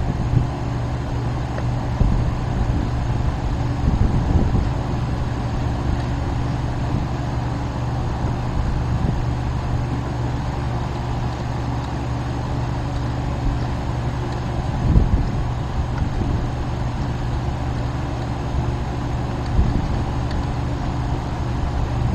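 A vehicle driving at a steady speed, with a constant engine hum and road noise. A couple of brief bumps come in the second half.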